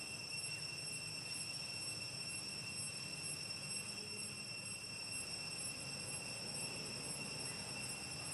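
Steady, unbroken high-pitched insect drone, crickets or cicadas, over a low steady rumble.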